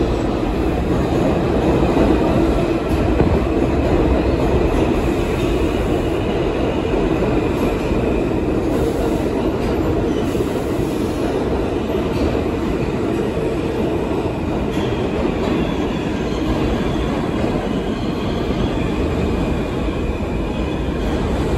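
New York City subway train running through an underground station: a steady loud rumble of wheels on rails with faint high tones above it.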